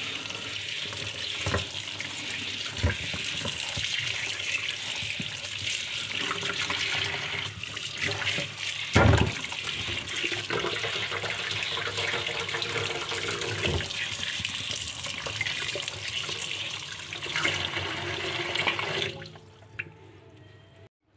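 Kitchen tap running into a steel bowl in a stainless steel sink as mangoes are washed under it by hand, with water splashing. A loud knock comes about nine seconds in, and the tap is shut off near the end.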